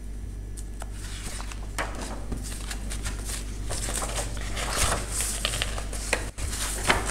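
Sketchbook pages being handled and turned: paper rustling with scattered light clicks and taps, over a low steady hum.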